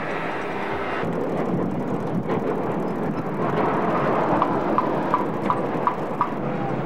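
Street traffic noise, a steady rumble and hiss, with a run of six short, evenly spaced high pips about two-thirds of the way through.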